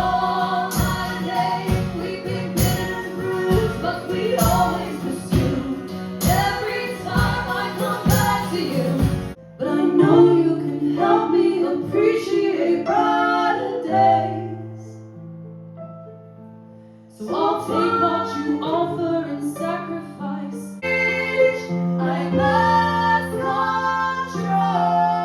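Background music: a song with singing over a steady beat. About nine seconds in, the beat drops out to held notes and fades to a short lull, then the singing and a low held note come back in.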